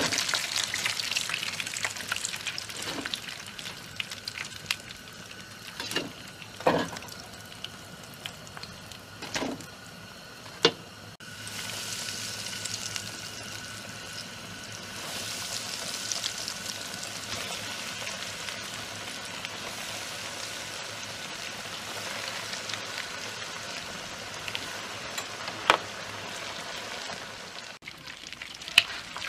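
Breadcrumb-coated food frying in plenty of oil in a pan, a steady sizzle, with a few sharp knocks scattered through it.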